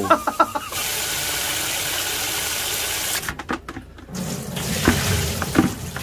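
Hot water poured in a steady stream for about two and a half seconds, then stopping, followed by lower, uneven sloshing. The hot water is being used to scald live frogs.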